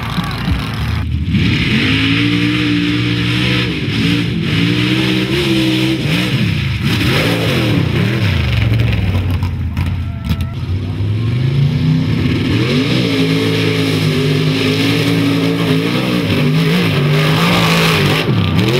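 Mud-racing trucks running hard across a mud track, their engines revving at full throttle with the pitch repeatedly climbing and dropping, over the rush of spinning tires throwing mud. There are two long runs, the second starting about twelve seconds in.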